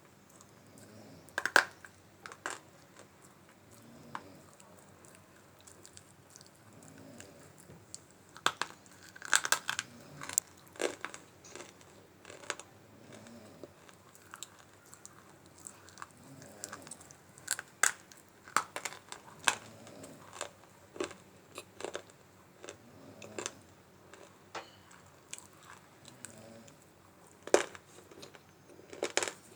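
Multani mitti (Fuller's earth clay) being bitten and chewed: sharp crunches come in irregular clusters, with quieter chewing between them.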